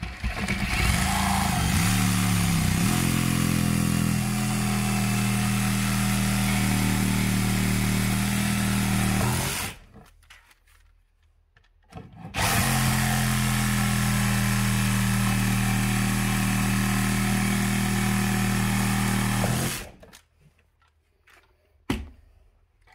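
Ryobi cordless one-handed reciprocating saw running in two long cuts, about ten and seven seconds, with a short pause between, as its blade cuts through the nail fixing an old electrical box to the wall stud. A single sharp tap near the end.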